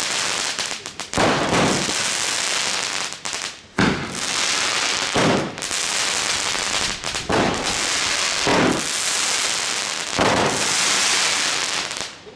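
A 30 mm firework battery firing shot after shot, one every second or two, over a steady dense hiss of burning effects. The sound drops away sharply about twelve seconds in, as the battery finishes.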